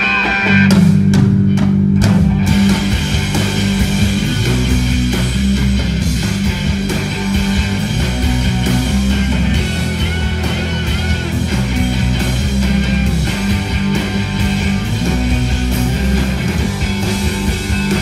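Live rock band playing: distorted electric guitars, bass guitar and a drum kit. About a second in the full band comes in harder with heavy bass and drums, after a lighter guitar line.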